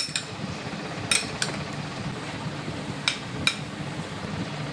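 Metal spoon clinking and scraping against a ceramic bowl as fruit salad is scooped out: about five sharp clinks with a brief ring, mostly in pairs, over a steady low hum.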